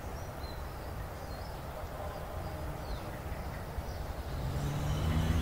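Outdoor park ambience: a steady low rumble with a few faint, scattered bird chirps.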